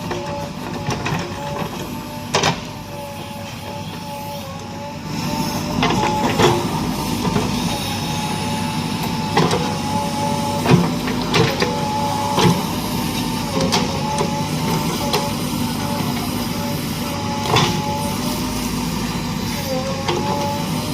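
JCB 3DX backhoe loader's diesel engine running under load with a steady hydraulic whine, and repeated sharp clanks from the bucket and arm linkage. The engine gets louder about five seconds in.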